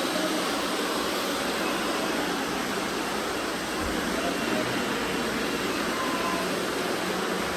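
Many robot vacuums running at once, a steady even whir of their suction motors and brushes.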